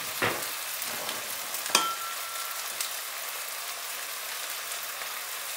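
Onions, tomato and green lentils frying in olive oil in a stainless steel pot: a steady sizzling hiss. Two light knocks cut through it, about a quarter second in and near the two-second mark, the second with a brief ringing.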